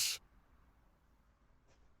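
The tail of a spoken word, then near silence: a faint steady hiss with a very soft tick or two.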